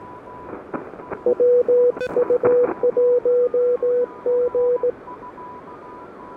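Morse code heard on an Elecraft KH1 transceiver's receiver: a strong CW signal keys on and off at a steady mid pitch for about three and a half seconds over a hiss of band noise. A fainter, higher-pitched Morse signal can be heard behind it.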